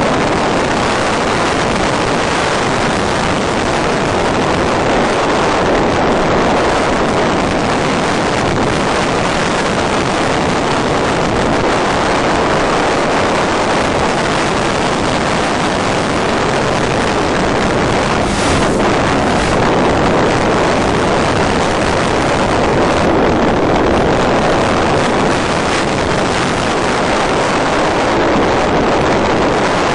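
Steady rush of wind over the onboard microphone of an FPV model plane gliding with its motor nearly off, with no motor tone.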